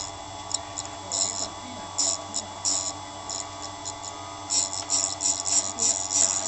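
Knife-grinding machine running with a steady hum, broken by short, irregular high-pitched grinding bursts as the blade touches the wheel; the bursts come thick and fast in the last two seconds.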